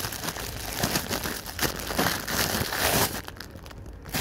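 Clear plastic sleeve around a stack of disposable cups crinkling as a cup is pulled out, a dense run of irregular crackles that dies down about three seconds in.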